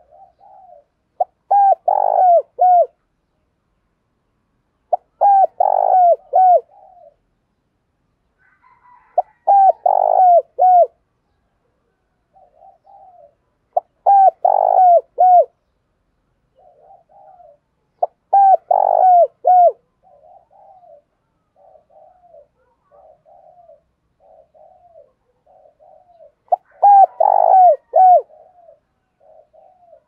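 Spotted dove cooing in the 'thổ đồng' voice that keepers prize in a decoy bird. It gives six loud phrases of three or four quick coos each, a few seconds apart, with soft low notes between them.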